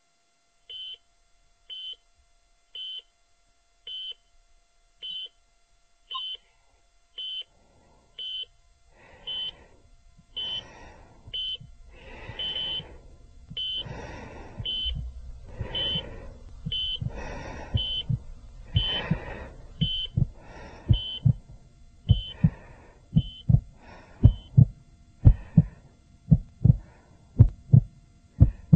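Hospital heart monitor beeping about once a second, joined after about eight seconds by a heartbeat fading in and growing louder. Near the end the beeps stop and the heartbeat thumps come sharper and quicker.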